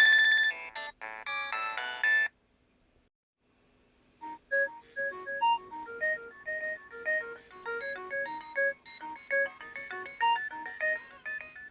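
Nokia 5140 mobile phone ringtones: a melody of bright electronic notes stops about two seconds in. After a short silence, another quieter tune of quick, short notes begins.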